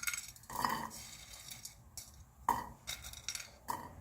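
A utensil scraping and shuffling dry, toasted instant-noodle pieces around a frying pan, in a few separate scrapes: about half a second in, at about two and a half seconds, and near the end.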